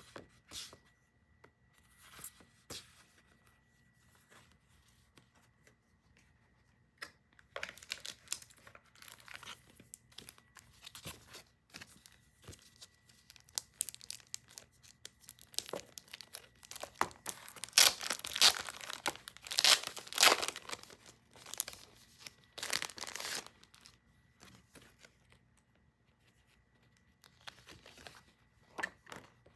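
Packaging being opened by hand: irregular tearing and crinkling of wrapping, sparse at first and building to a run of loud rips about two-thirds of the way through.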